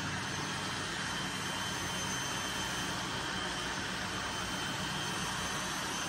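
Several robot vacuums, among them iRobot Roombas, running at once: a steady whir of suction fans and brushes with faint high whines held over it.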